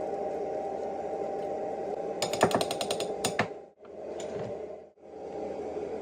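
A quick run of sharp clicks, about ten a second, lasting roughly a second, over a steady background hum. The sound cuts out abruptly twice soon after.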